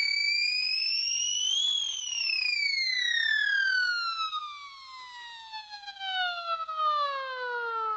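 Cartoon sound effect: one pitched tone that slides up until about two seconds in, then drops in one long, steady downward glide, the classic falling-object sound.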